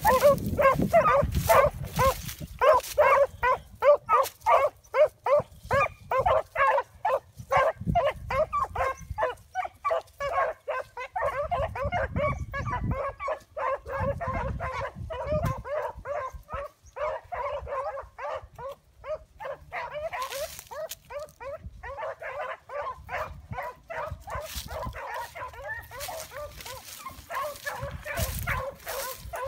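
A pack of hounds baying steadily as they run a rabbit's trail, several dogs calling over one another, several cries a second. The chorus is loudest at first, eases in the middle and swells again near the end.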